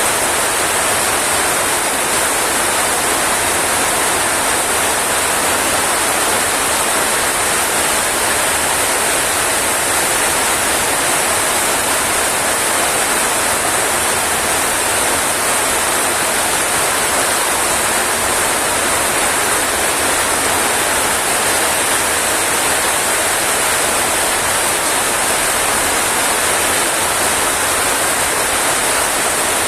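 Heavy rain falling steadily, a dense, even hiss with no breaks or single drops standing out.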